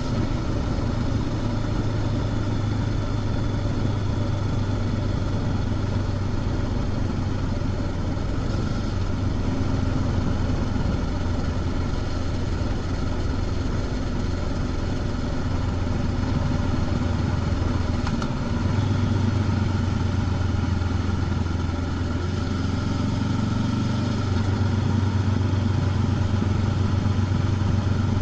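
Honda CB500X's parallel-twin engine running steadily at moderate revs through its stock exhaust, heard from the rider's seat. About two-thirds of the way through the note briefly dips, then comes back a little higher and louder.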